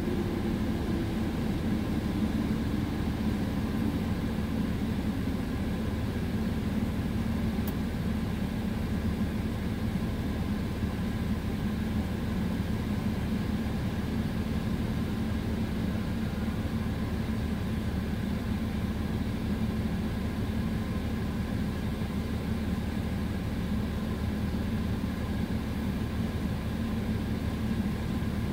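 Automatic car wash working over a dually pickup, heard from inside the cab: a steady low rumble of the wash machinery and the truck's idling engine. A hum sinks slightly in pitch over the first second or two.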